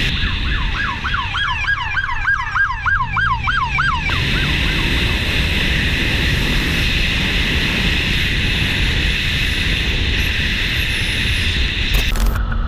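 An emergency-vehicle siren in a fast yelp, sweeping up and down about four to five times a second for roughly three seconds. It is followed by a steady rushing noise of wind and traffic.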